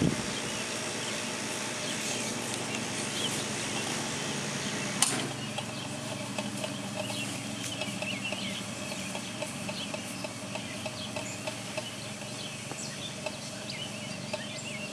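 Seven-week-old beaver kit making short, high squeaking cries in quick, irregular succession over a faint steady hum. A single sharp click comes about five seconds in.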